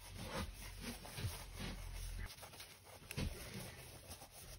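Quiet handling noises of a tablet being worked on by hand: light clicks and rubbing, with one sharp click about three seconds in. A faint low hum stops a little after two seconds in.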